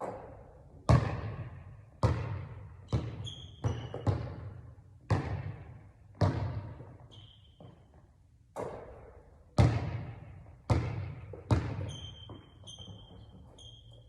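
A basketball being dribbled on a hard court: single echoing bounces, roughly one a second at an uneven pace. Short high squeaks come between bounces now and then, most of them near the end.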